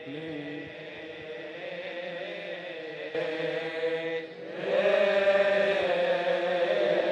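Men's voices chanting Coptic liturgical chant in long, slowly gliding held notes, growing louder and fuller about four and a half seconds in.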